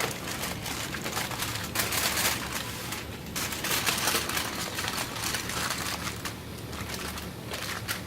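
Aluminium foil crinkling and rustling as it is folded and wrapped around marinated chicken pieces, in irregular crackly bursts.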